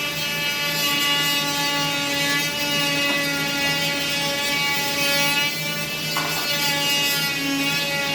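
Power tool running with a steady buzzing whine as it cuts through drywall, its pitch wavering slightly.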